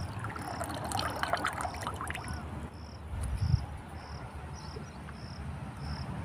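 A cricket chirps steadily, about one and a half chirps a second. Over the first two seconds come clicks and a light trickle as pesticide is poured from a plastic measuring cup into a knapsack sprayer tank, and there is a low thump about three and a half seconds in.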